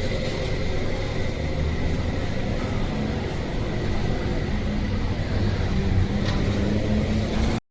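Steady low rumble of trains and road traffic at a railway level crossing, with a faint steady high tone over it; it cuts off suddenly near the end.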